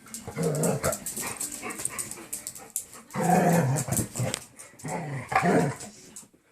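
Dogs squabbling, growling and barking at each other in several bursts. The loudest bursts come about three seconds in and again near the end.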